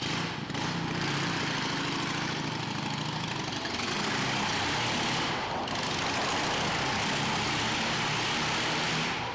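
Vintage motorcycle engine running and revving as the bike circles the inside of a wooden Wall of Death drum, getting louder about four seconds in.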